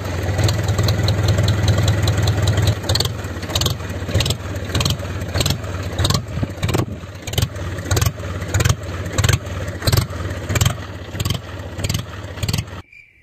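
DIY mini tractor running, a steady low hum broken by repeated clattering knocks, cutting off abruptly near the end.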